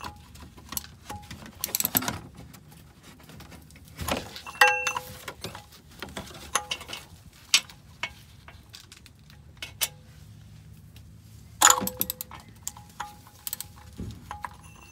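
Metal hand tools clinking and rattling as a socket extension and oil filter adapter are fitted and worked on the filter housing, several sharp clinks ringing briefly.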